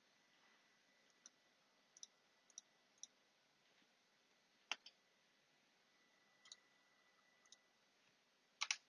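Faint, scattered computer mouse clicks, about a dozen spread irregularly, with a louder quick pair near the end.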